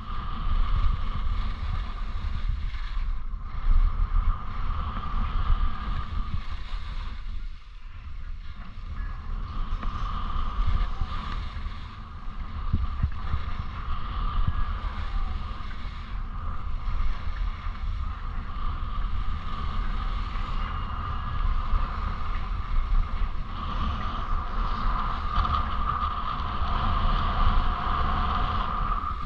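Wind buffeting the microphone of a camera carried down a ski run at speed. Under it is the continuous scraping hiss of edges carving over packed, groomed snow, swelling and easing with each turn.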